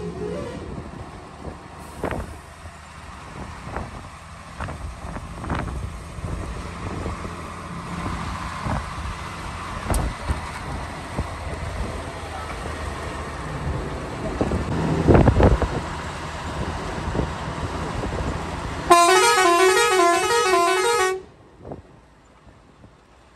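Heavy truck on the move, its engine droning with occasional sharp knocks and rattles. About 19 seconds in, a loud musical horn plays a short stepped tune for about two seconds, then the sound drops away sharply.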